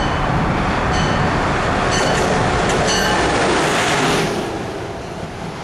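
Amtrak Acela Express electric trainset passing at speed along a station platform: a loud rush of wheels and air with rail clicks and brief high wheel squeals, dropping off about four seconds in as the power car goes by.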